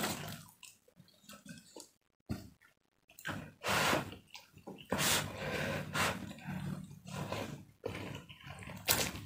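A person slurping up mouthfuls of instant fried noodles and chewing, in irregular wet bursts, with a brief drop to silence about two seconds in.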